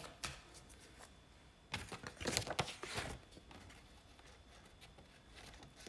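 A few soft taps and rustles of a deck of cards being handled, in short clusters with the loudest about two seconds in and quiet stretches between.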